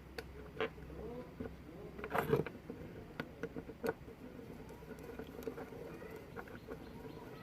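Scattered metal clicks and small knocks from parts of a motorcycle's electric starter motor being fitted back together by hand, with one louder clatter about two seconds in.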